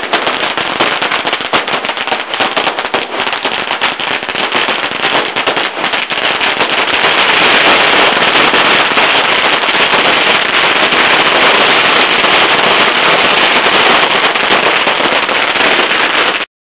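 A large firework going off at ground level: a dense rapid crackle of many sharp bangs, which about seven seconds in becomes a louder, unbroken crackling blaze and then cuts off suddenly near the end.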